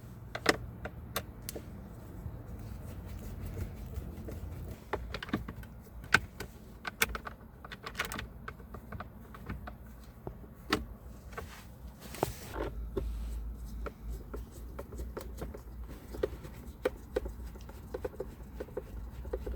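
Scattered small clicks and taps of hand work as three screws are put back into a steering angle sensor assembly on a steering column, over a low steady hum.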